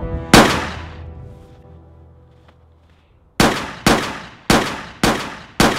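Six pistol shots. The first comes about a third of a second in and rings out for over a second; after a pause of about three seconds, five more follow in quick succession, roughly half a second apart.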